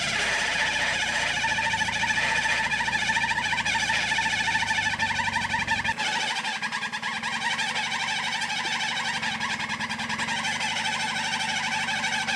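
Toyota Land Cruiser engine running hard under load as the truck climbs, with a steady drone that wavers in pitch; the deep rumble drops away about halfway through.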